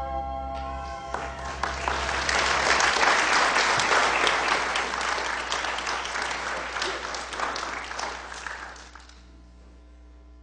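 Congregation applauding as a song ends: the last held notes of the music stop about a second in, the clapping swells, then dies away near the end, leaving a low electrical hum.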